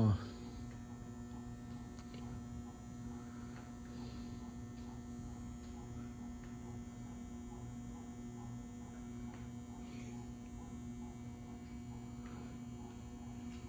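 Low, steady electrical hum from HID light fixtures and their ballasts, four 400-watt metal halide lamps and one 250-watt mercury vapor lamp, lit and warmed up.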